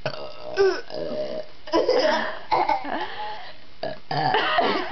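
A person burping several times: long, drawn-out burps in a row.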